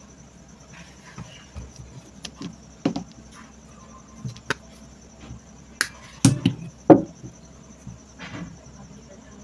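Scattered clicks and light knocks from handling wires and small tools while connecting a fan motor's wiring, the loudest a cluster of knocks a little past halfway.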